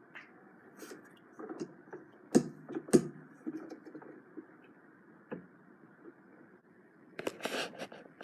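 Two sharp knocks about half a second apart, a couple of seconds in, among scattered faint clicks and handling noises.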